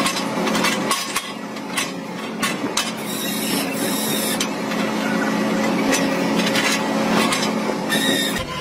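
Hydraulic excavator running steadily with a constant hum, punctuated by metallic clicks and clanks as its quick coupler swaps and handles attachments.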